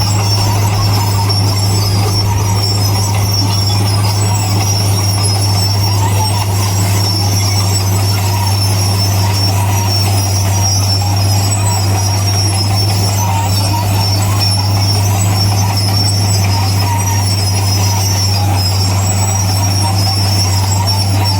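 Bulldozer's diesel engine running at a steady, unchanging pitch, with a steady high squeal alongside.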